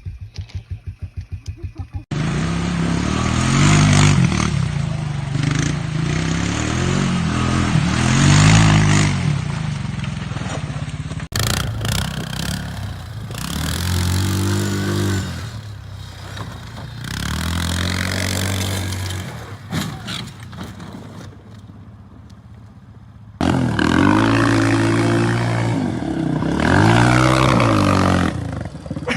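Engines of off-road bikes and quads revving up and falling back again and again, across several clips joined by abrupt cuts. It opens with a fast, even putter of an engine at low revs.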